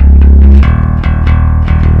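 Electric bass guitar playing a bass line in a song: one loud, low held note, then a change to other plucked notes a little after half a second in.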